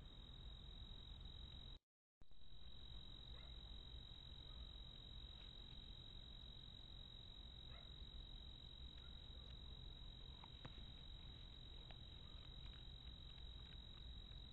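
Faint night insect chorus: a steady, high-pitched cricket trill over low hiss, with a few faint ticks. The sound drops out completely for a moment about two seconds in.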